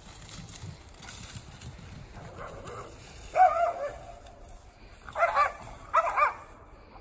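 A dog giving three high-pitched, yelping barks: one about three and a half seconds in, then two close together near the end.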